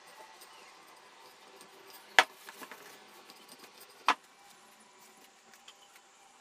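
Wooden rolling pin rolling out soft dough on a wooden board, faint, broken by two sharp knocks about two seconds apart.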